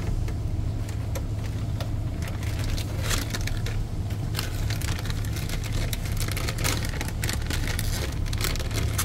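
Steady low drone of the ship's machinery, with irregular clicks and crackles over it that grow thicker about three seconds in.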